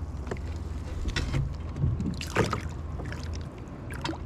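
Water splashing and sloshing beside a kayak as a caught pike is held in the water before release, with a few short knocks and splashes over a steady low wind rumble on the microphone.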